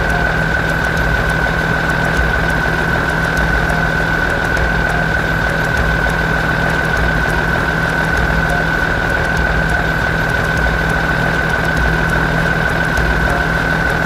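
Road roller engine running steadily: a low rumble with a constant high whine over it.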